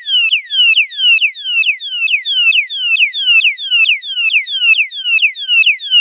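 Security alarm lock's built-in siren, set off by a blow to the lock, sounding loud and continuous: a rapid electronic yelp of falling pitch sweeps, about three a second. The siren is rated at 110 decibels.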